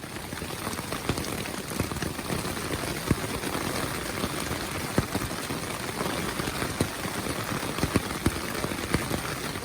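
Rain falling on a tent, heard from inside: a steady hiss with many sharp individual drop hits scattered through it.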